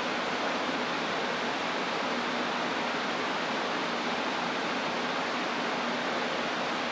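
A steady, even hiss, unchanging in level, with no distinct events.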